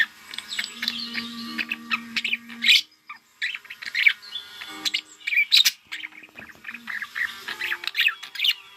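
Pet budgerigars chattering: rapid, overlapping chirps and warbles, with a short lull about three seconds in.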